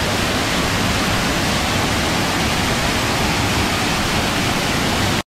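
Waterfall pouring into a plunge pool: a steady, loud rush of falling water that cuts off suddenly near the end.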